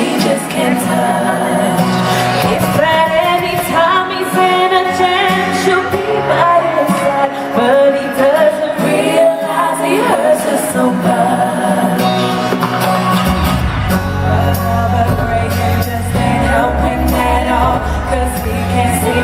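Female vocal group singing a slow pop/R&B song live, with layered harmonies over a sparse backing; a heavy bass line comes in about two-thirds of the way through.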